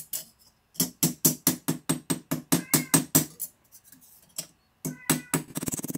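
Riveting hammer tapping a wire rivet on a brass sheet resting on a steel bench block, peening it crosswise to spread and flare the rivet head. The light metallic taps come about five a second, pause briefly, then start again faster near the end.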